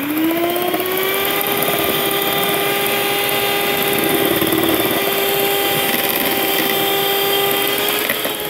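Electric mixer running at speed, its beaters whipping egg yolks into beaten egg whites for a sponge batter. The motor whine rises in pitch as it spins up in the first second, then holds steady.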